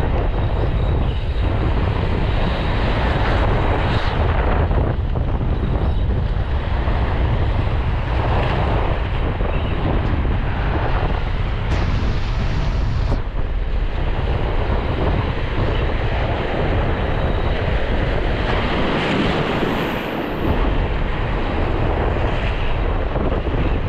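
Strong wind buffeting the microphone, with a low, steady rumble, over the wash of sea waves on a rocky shore.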